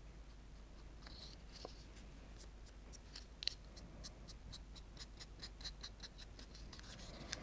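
Paintbrush dry-brushing a 3D-printed miniature: faint, quick scratchy strokes, about four or five a second, in a run of several seconds starting about two seconds in.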